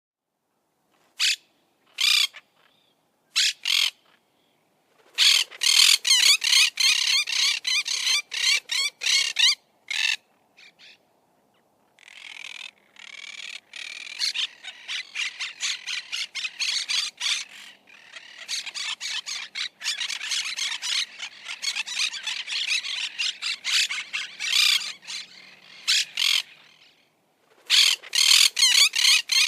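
Monk parakeets calling with harsh, short squawks: a few single calls at first, then fast runs of squawks from about five seconds in, and from about twelve seconds a dense, near-continuous chatter with a short break near the end.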